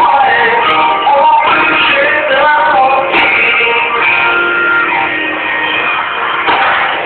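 Live pop-rock concert music over a PA: a voice singing over a band with guitar, loud and steady, sounding dull and thin as recorded from the audience.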